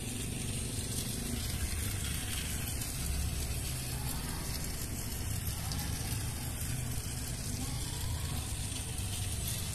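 Battery-powered Rail King toy steam locomotive running around its plastic track, with the steady noise of its small electric motor and wheels.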